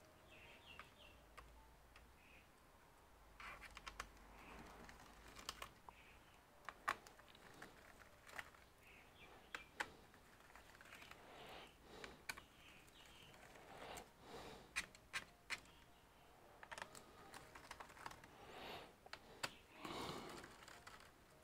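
Quiet, irregular clicks and light taps as gloved hands and a screwdriver handle a Gigabyte Aero 15 laptop's bottom case, with a few softer rubbing sounds between them.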